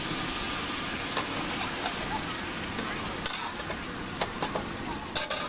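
Egg-and-bread omelette sizzling steadily on a hot flat iron griddle, with sharp clicks and scrapes of a metal spatula on the pan, a few scattered and the loudest near the end as the omelette is lifted and flipped.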